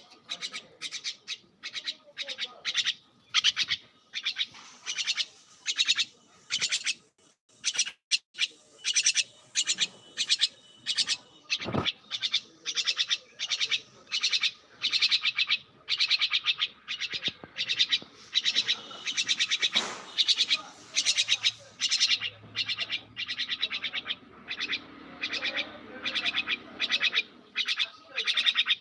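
A bird chirping over and over in a steady run of short, high-pitched calls, about two to three a second.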